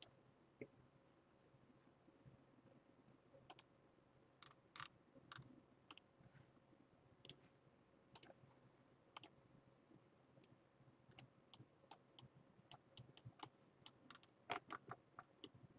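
Faint computer mouse clicks, scattered and sparse over near silence, with a quick run of several clicks near the end.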